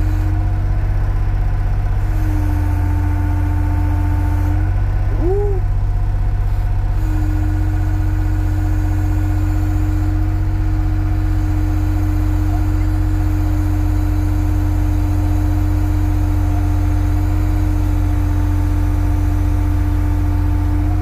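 Excavator's diesel engine running steadily, heard from inside the cab while it lifts a cart hung from the bucket. Over the low engine sound runs a steady whine that shifts pitch a couple of times in the first seven seconds, with a brief rising-and-falling squeal about five seconds in.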